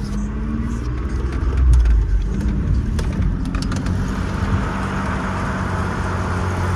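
Nissan D21 Hardbody pickup's V6 engine pulling under load as the truck drives onto sand dunes in four-wheel drive, loudest about two seconds in. From about four seconds in, a rushing hiss of wind joins it.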